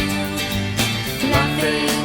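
Background music: a passage of a band song with guitar and a steady beat, with no words sung in it.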